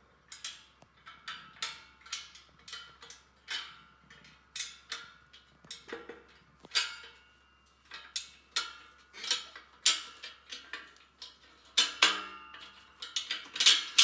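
Steel bolt and angle bracket clinking and rattling against the rack's steel leg and frame as the bolt is worked through the holes: irregular metallic clicks, several a second, some with a short ring.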